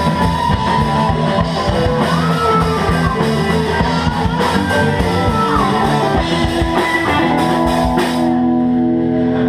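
Live rock band with electric guitars, bass and drum kit playing loudly, the guitar bending notes. About eight seconds in the drums and cymbals stop and a final chord is left ringing.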